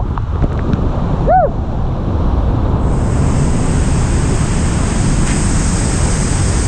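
Whitewater rapids rushing around a kayak, with wind buffeting the helmet camera's microphone. About a second in, a short pitched sound rises and falls, and from about three seconds in a steady high hiss joins the rush.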